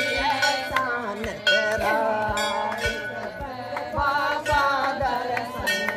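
Hindi devotional bhajan music: a melody over a steady drum beat of about two strokes a second.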